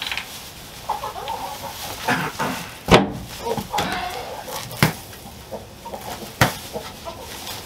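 Chickens clucking, with three sharp knocks about a second and a half apart, the first about three seconds in.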